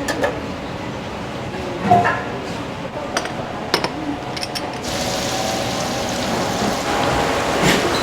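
Restaurant kitchen work: scattered clinks and knocks of dishes and utensils, then a steady rushing hiss that starts suddenly about five seconds in.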